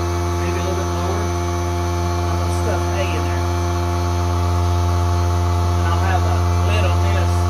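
A loud, steady low hum with a stack of steady higher tones above it, unchanging throughout, like a machine or electrical hum.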